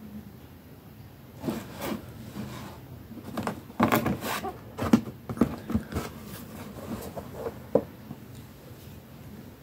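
Cardboard product box being handled and turned around: a string of scrapes, rubs and knocks against the box, busiest midway, with one sharp knock near the end.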